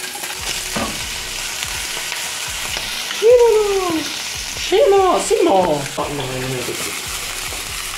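Oil sizzling in a nonstick frying pan with canned tuna, as diced raw salmon is tipped in from a wooden cutting board about four seconds in, with scattered clicks of stirring. Midway a person's voice calls out loudly twice without words, the first a long falling cry.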